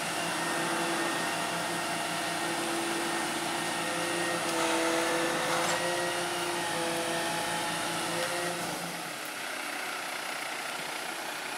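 A boom truck's engine and hydraulic pump run steadily with a whine while the knuckle-boom crane swings a stack of shingles off the deck. The whine rises and grows louder about four and a half seconds in. About nine seconds in the low engine hum drops away, leaving a fainter whine.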